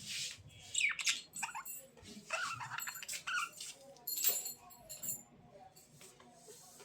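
Budgerigars chirping: quick, irregular chirps that sweep up and down in pitch, coming in bursts and thinning out over the last couple of seconds.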